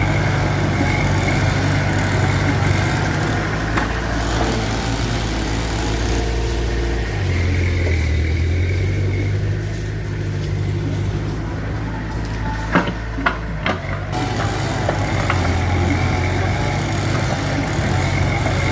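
Mitsubishi BD2F bulldozer's diesel engine running steadily, its pitch shifting lower about seven seconds in. A few sharp metallic knocks come in quick succession about two-thirds of the way through.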